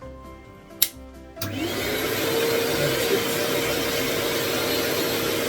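Hoover bagged vacuum cleaner switched on: a click, then about one and a half seconds in the motor starts, its whine rising and settling into a steady rushing run.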